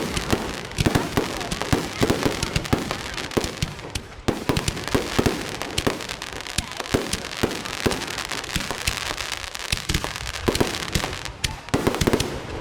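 Fireworks going off: a dense, irregular run of sharp bangs and crackles, many overlapping, with no let-up.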